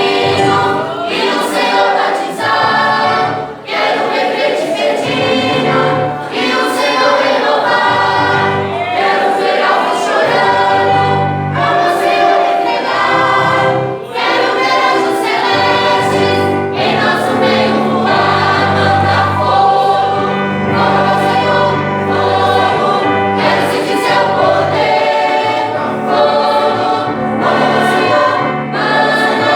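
Choir singing a Christian worship song in full voice, with instrumental backing of bass and regular drum beats.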